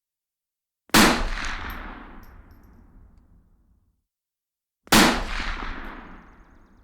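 Two rifle shots about four seconds apart, each a sharp crack followed by a long echoing tail that fades away over about three seconds.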